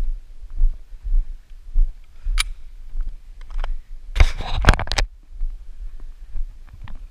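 Footsteps and handling noise on a body-worn camera while walking on grass: repeated low thumps, a single sharp click about two and a half seconds in, and a louder rustle between about four and five seconds.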